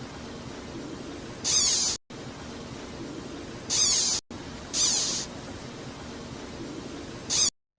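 An animal hissing in four short, sharp bursts of about half a second each, over a steady background hiss.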